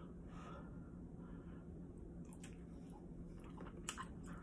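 A person chewing a mouthful of cheesy tteokbokki (Korean rice cakes in sauce), with soft wet mouth sounds and a few faint clicks in the second half.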